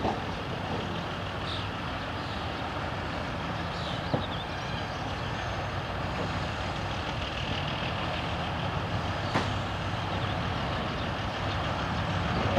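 M62 diesel locomotive's two-stroke V12 diesel engine running steadily with a low, even note. A couple of short sharp clicks come about four and nine seconds in.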